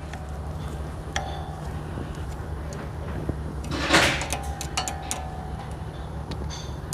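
Pliers pulling the cotter pin from a wheel's axle nut: a few light metal clicks that ring briefly, and a short scrape about four seconds in, over a steady low hum.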